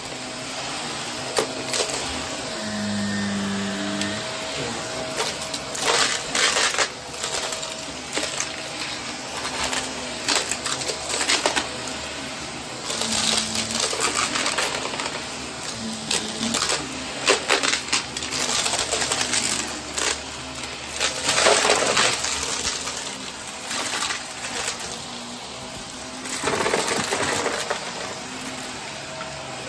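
Close-miked ASMR trigger sounds: irregular taps, clicks and clinks of handled objects, with a few longer scratchy, rustling swishes.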